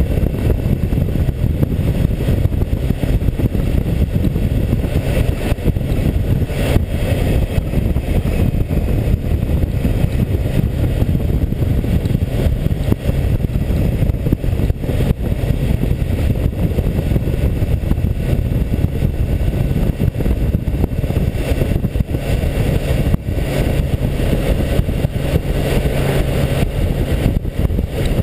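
Wind buffeting a tank-mounted action camera's microphone on a BMW K1600GTL at road speed, a steady low rush, with the motorcycle's inline-six engine running underneath.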